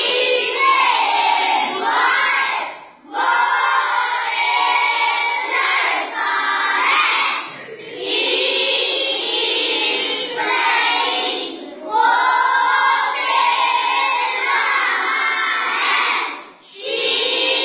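A class of schoolchildren reading a lesson aloud in unison in a sing-song chant, many young voices together, with short breaks between lines every four to five seconds.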